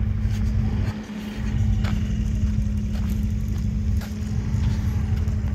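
Diesel engine of a heavy truck idling steadily: a low rumble with a steady hum, dipping briefly about a second in.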